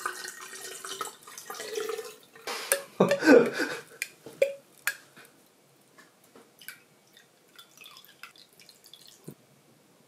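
Drink glugging out of a bottle onto ice in a glass carafe, loudest about three seconds in. It is followed by a thinner pour into a small glass and a few light ticks.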